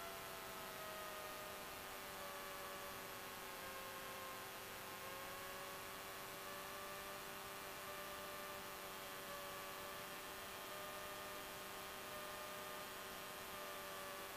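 Faint hum of the Cessna 172's engine coming through the cockpit audio feed. It is a steady tone that sinks a little in pitch over the first few seconds as power comes back for landing, then holds, over a low hiss.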